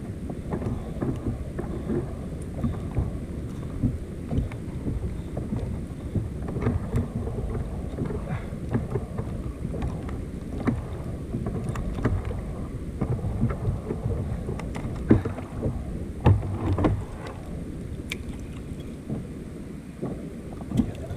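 Wind rumbling on the microphone of a kayak-mounted camera on the open sea, with scattered small knocks and clicks of fishing gear and hands against the plastic kayak; a few louder knocks come about two-thirds of the way through.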